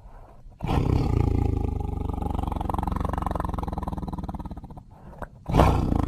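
Tiger roaring: a long, rough roar of about four seconds after a faint low growl, then a second roar begins near the end.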